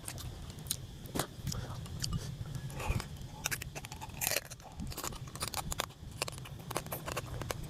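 A person chewing and crunching food close to the microphone, with many irregular sharp crunches and clicks.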